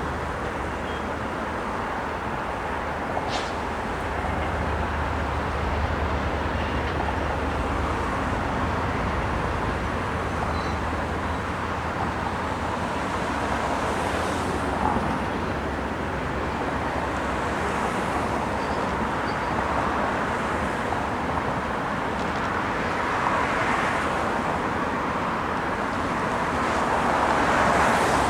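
Steady rumbling roar of passing vehicles, with a few faint short squeaks over it.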